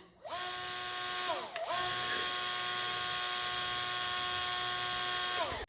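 Small RC boat electric motor spinning up to a steady whine. It winds down and back up about a second and a half in, then holds steady and winds down near the end.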